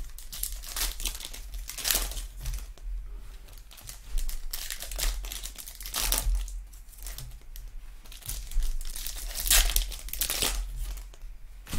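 Foil wrappers of 2020 Donruss Optic football retail card packs crinkling and tearing as the packs are opened by hand, in irregular bursts of rustling.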